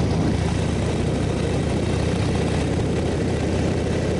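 Motorcycle engine running steadily while under way, with a constant rush of noise over its low note.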